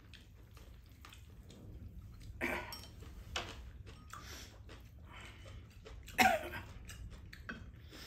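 Eating sounds at a meal: chewing, and spoons and chopsticks working in ceramic bowls, in scattered short noises. A sharper, louder noise comes about six seconds in.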